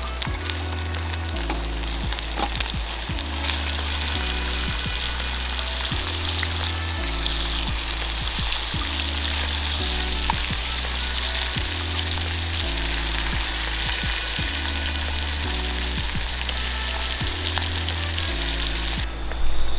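Food frying in a pan: a steady sizzling hiss that cuts off suddenly near the end. Background music with slowly changing low chords plays underneath.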